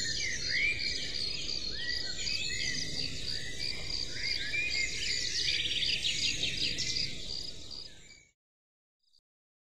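Many birds chirping over a soft low hiss, with a high chirp repeating at an even rhythm. It fades out and stops about eight seconds in.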